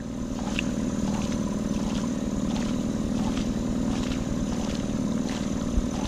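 Small boat engine running at a steady speed as the boat cruises along the river, a constant even drone.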